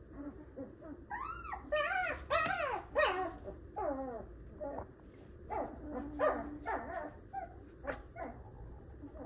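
A 12-day-old wolfdog puppy whimpering and squealing: a string of short, high calls that rise and fall in pitch. The calls are loudest between about one and three and a half seconds in, then come as shorter whines until near the end.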